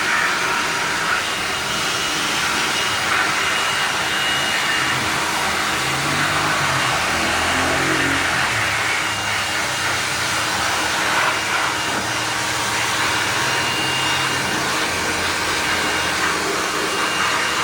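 Steady motor whine and hiss of a power cleaning tool blasting into a window-type air conditioner as it is being cleaned.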